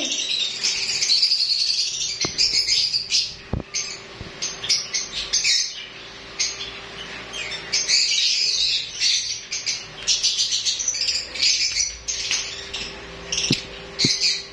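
A room of caged lovebirds chirping and calling all at once, a dense high chatter that never stops. A few sharp clicks cut through it, and a faint steady hum runs underneath.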